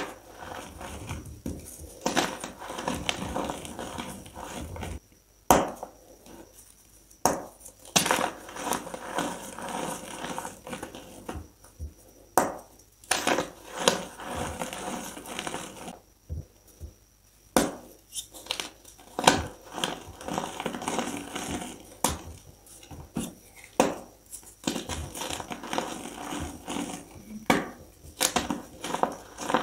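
Fingers crushing and crumbling reformed gym chalk: dry, powdery crunching broken again and again by sharp snaps as chunks break apart.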